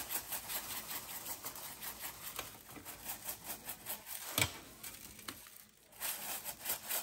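Garlic pepper seasoning shaken onto a raw beef roast, the granules pattering faintly and irregularly on the meat and on the wire rack and sheet pan below, with hands handling and turning the roast. One sharper tap comes about four seconds in.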